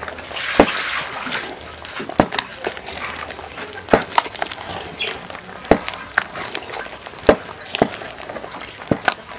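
Wooden stirring stick knocking against the cooking pot about every second and a half as thick millet-and-cassava TZ dough is stirred.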